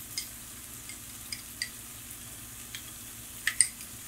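Metal spoon stirring cornstarch into water in a small glass bowl, clinking lightly against the glass about six times at irregular moments.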